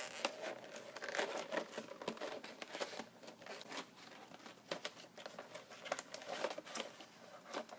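Plastic wrapping being torn and crinkled off a boxed trading-card collection, an irregular run of crackles and rustles.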